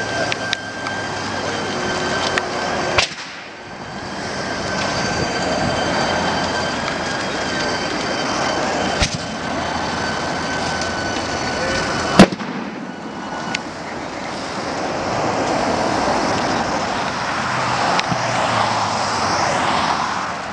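Car transporter lorry and the cars on it burning: a steady roar of flames broken by several sharp bangs as the burning cars explode, the loudest about twelve seconds in. A thin steady high tone runs through the first part and stops around the loudest bang.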